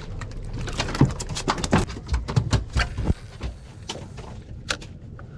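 A freshly caught small mahi-mahi (dolphinfish) flapping and thrashing in the boat, shaking itself off the hook. It makes a rapid run of wet slaps and knocks that thins out about three seconds in.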